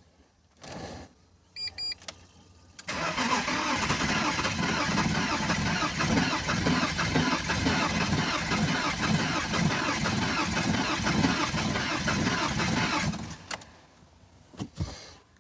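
BMW engine cranking on its starter for about ten seconds with an even pulsing rhythm, then stopping suddenly without catching: a no-start, although fuel is reaching the engine. A few short electronic beeps come just before the cranking begins.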